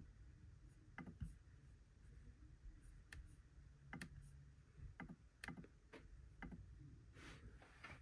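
Faint, scattered computer mouse clicks, about one a second, with a short rustle near the end.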